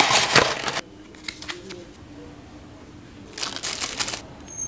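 Unboxing rustle: a cardboard tray sliding out of its sleeve at the start, a few faint clicks, then a small plastic bag crinkling in the hands about three and a half seconds in.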